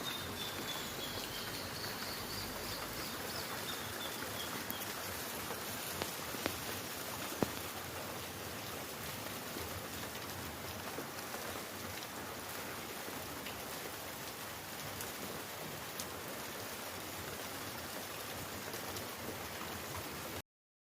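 Steady rain falling as an even hiss, with a few louder single drops hitting about six to seven seconds in. A faint high trill dies away in the first few seconds, and the sound cuts off abruptly just before the end.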